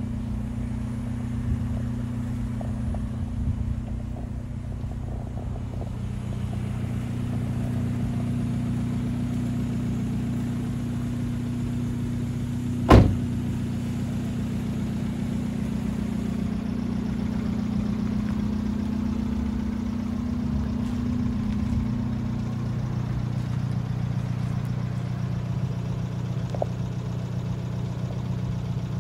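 Abarth 124 Spider's 1.4-litre turbocharged four-cylinder engine idling steadily, its note shifting slightly twice. A single sharp knock comes about halfway through.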